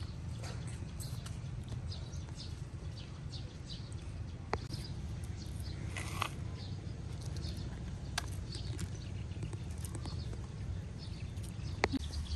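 Outdoor ambience: a steady low rumble under repeated short, high chirps, with a few sharp clicks.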